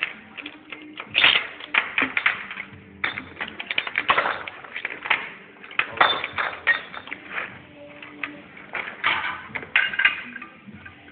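Irregular clattering, knocking and rattling of metal and wooden scrap being shifted by hand in a cluttered pile.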